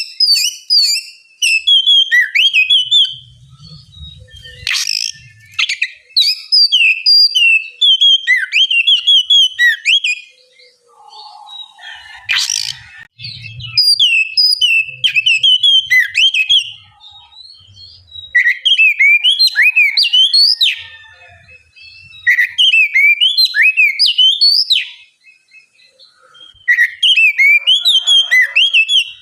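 Oriental magpie-robin (kacer) singing in the relaxed 'ngeplong' style: clear whistled phrases of quick notes, each lasting a few seconds, with short pauses between. A few sharp, whip-like notes stand out, one about five seconds in and one about twelve seconds in.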